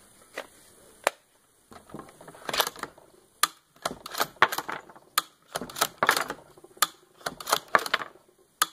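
Remington 700 bolt-action being worked repeatedly to cycle dummy rounds through a Magpul detachable box magazine: a string of sharp metallic clicks and clacks as the bolt opens, draws back and closes, with ejected rounds dropping onto the wooden bench. It is mostly quiet for the first second or so, then the clicks come in irregular clusters.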